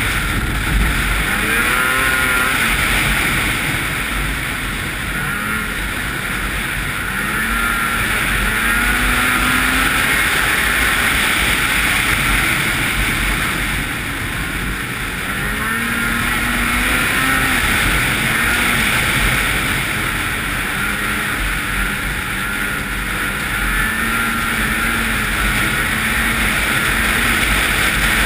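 Ski-Doo 800 snowmobile's two-stroke engine running at speed, its pitch rising and falling again and again as the throttle changes, over steady wind and track rush.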